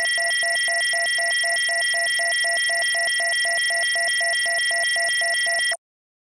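Steady high electronic tones with a lower tone pulsing about five times a second, cutting off abruptly near the end.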